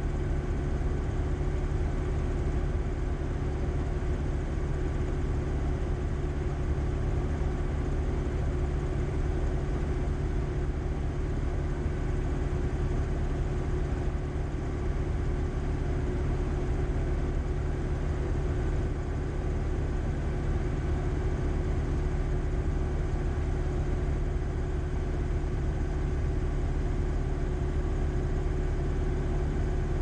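Light-sport airplane's piston engine idling steadily with the propeller turning, heard from inside the cockpit.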